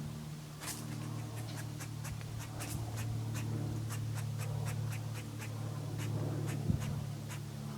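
A squirrel making a rapid series of sharp clicking calls, irregularly spaced at roughly three to five a second, over a steady low hum.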